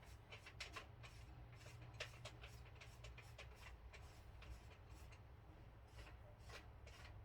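Faint scattered clicks and light taps of small hard objects being handled, over a low steady hum.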